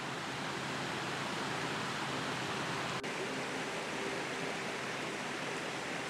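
Mountain stream rushing over rocks: a steady hiss of running water.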